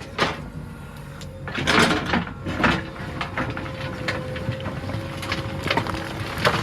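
JCB 3DX backhoe loader's diesel engine running steadily with a hydraulic whine, broken by several clanks and crunches of the bucket and soil, the loudest about two seconds in and near the end.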